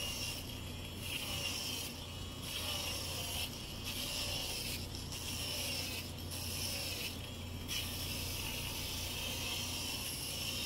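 Hurricane cordless foot drill running, its spinning sanding pad rubbing callused skin off a heel. It makes a steady hum under a rasping hiss, with brief dips in the hiss about once a second.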